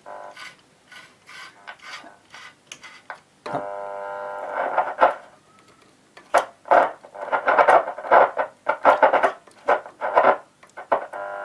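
AWA Radiola 617 valve radio's speaker crackling, with a station's music cutting in and out as a dirty band switch is turned. The music holds for a moment about three and a half seconds in, then breaks into loud scratchy bursts before coming back near the end.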